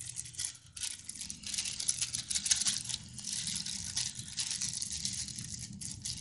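Plastic packaging crinkling and rustling as small BMX headset parts are handled and unwrapped, with a dense run of sharp crackles and light clicks, busiest between about one and three seconds in.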